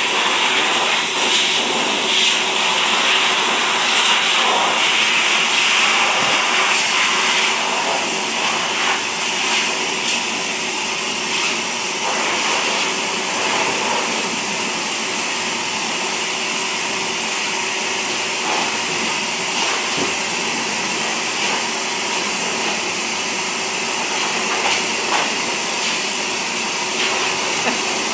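Pet grooming dryer blowing air steadily through its hose: a constant rush of air with a steady motor tone, a little louder for the first several seconds and then even.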